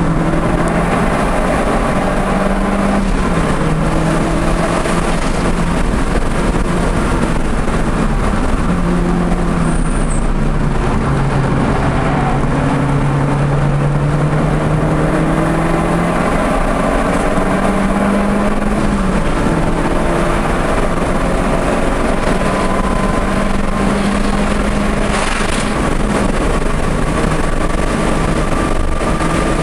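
Audi TT engine pulling hard on a race track, heard on board over steady road and wind noise. Its pitch climbs and then drops several times as it shifts gears and slows for corners.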